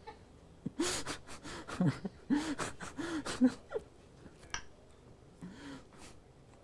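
A man laughing in a run of short, breathy bursts about half a second apart, with a softer laugh near the end.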